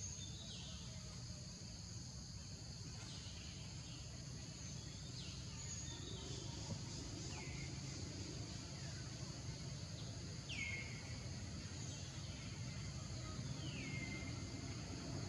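Tropical forest ambience: a steady high insect drone, with a high call that falls in pitch and levels off, repeated about seven times a couple of seconds apart, over a low rumble.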